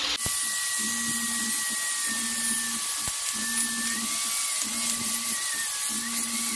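A high-speed electric rotary tool, of the die-grinder kind, is running against a stainless-steel motorcycle center stand. Its high whine wavers up and down in pitch as it bites, over a steady hiss, and it winds down at the very end.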